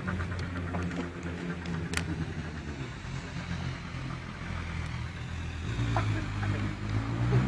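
Motor vehicle engine idling, a steady low rumble, with a sharp click about two seconds in.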